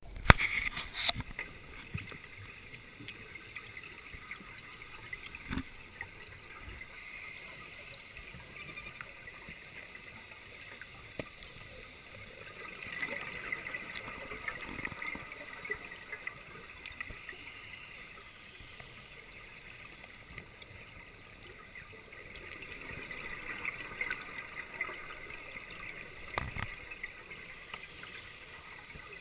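Scuba exhaust bubbles gurgling, recorded underwater, in two long swells about twelve and twenty-two seconds in, with a steady low wash between them. There are a few sharp knocks, the loudest right at the start.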